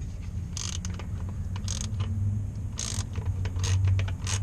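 A 3/8-inch drive socket ratchet clicking in short strokes, about once a second, as a stubborn 14 mm starter mounting bolt is backed out. A steady low hum runs underneath.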